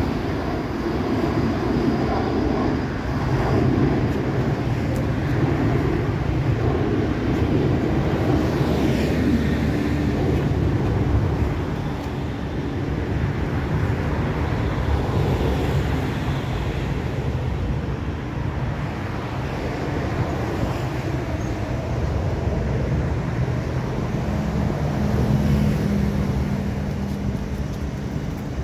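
Road traffic: a continuous rumble of cars passing on a multi-lane road, with a passing vehicle's engine hum swelling and fading near the end.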